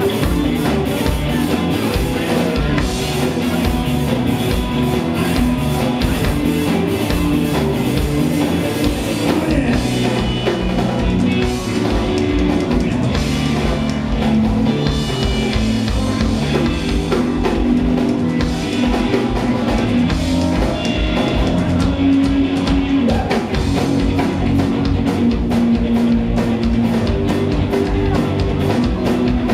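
Rock band playing live: electric guitars over a drum kit, loud and steady throughout.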